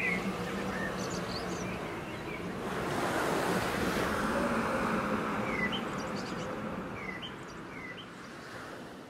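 A rushing ambient noise that swells about three seconds in and fades near the end, with a few short bird chirps over it and a faint low hum beneath.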